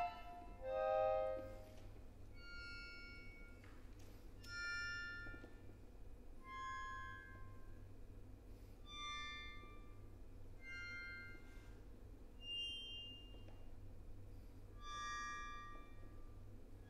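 Solo accordion playing a sparse contemporary passage: short, soft, high-pitched chords, one every second or two, separated by pauses.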